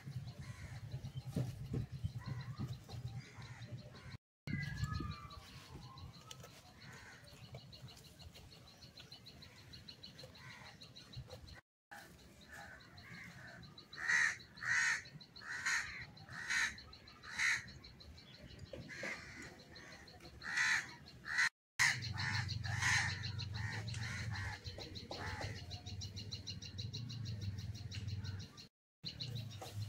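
Crow cawing: a run of about five harsh caws roughly a second apart midway through, then several more in quicker succession. A low rumble sits under parts of it.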